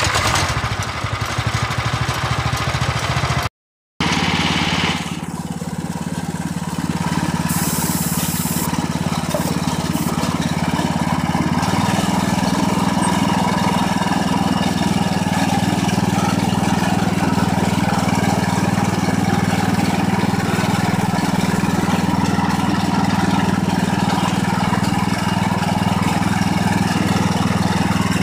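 Harbor Freight Predator 14 hp single-cylinder engine on a garden tractor, just started on choke and running. There is a short break about three and a half seconds in. The engine note changes about twelve seconds in and then holds steady.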